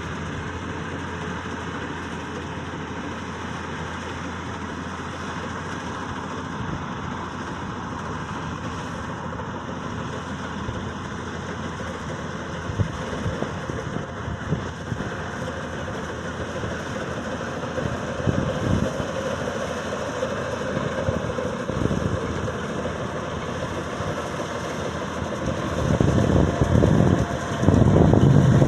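Maxxi Bimo 102 Top combine harvester's engine running steadily, growing louder with a heavier, uneven rumble near the end.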